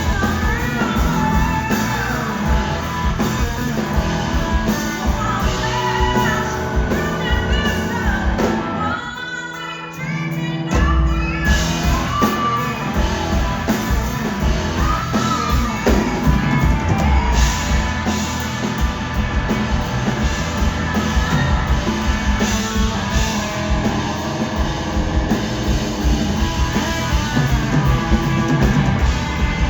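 Rock band playing live, loud, with singing over drums and guitar. About nine seconds in, the drums drop out for a moment, leaving held notes, and the full band crashes back in about a second and a half later.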